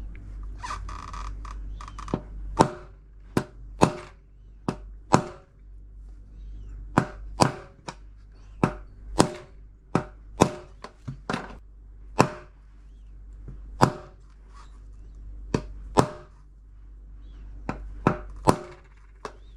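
Hammer blows driving a drum bearing into the tub housing of an LG washing machine: about twenty sharp, separate knocks at an uneven pace, with the bearing slowly seating.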